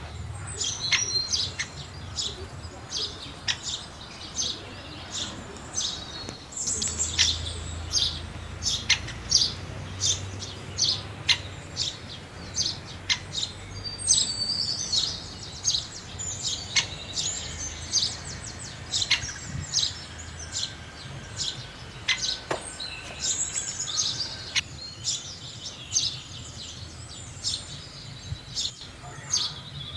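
House sparrows chirping: a steady run of short, sharp chirps, several a second.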